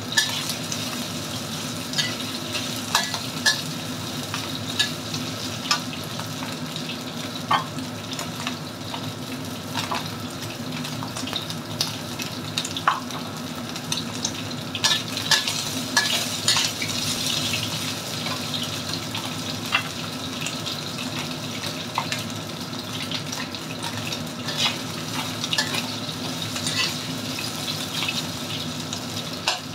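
Diced chicken sizzling in a wok while a metal spatula stirs it, scraping and clicking against the pan every second or two.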